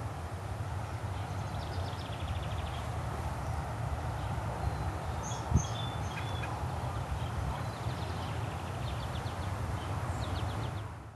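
Outdoor ambience: a steady low rumble with faint, high bird trills now and then, and a single sharp click about five and a half seconds in.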